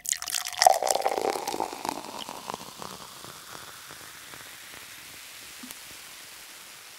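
Intro sound effect with the title animation: a dense patter of many small clicks, like rain or pouring, that thins out over about three seconds into a steady hiss and slowly fades.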